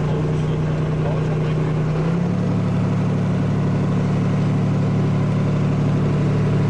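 Boat's inboard engine running steadily, its note changing and growing stronger about two seconds in as the boat gets under way.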